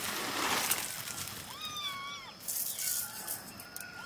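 A short burst of rushing noise in the first second, then an animal calling several times with arching, rising-and-falling cries, the longest about two seconds in.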